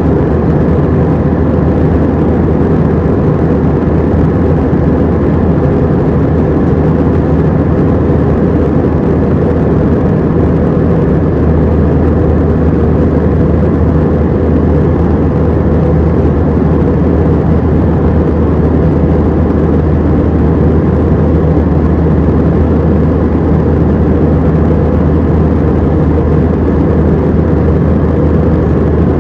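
Cabin noise inside an Airbus A319-114 in flight: a loud, steady, low drone of its CFM56-5A jet engines and the airflow around the fuselage.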